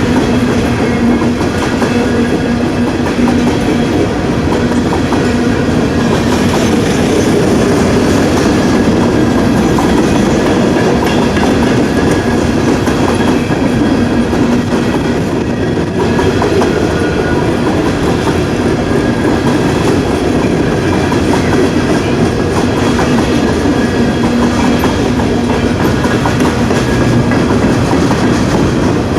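Train cars rolling steadily past, wheels clicking and rattling over the rails.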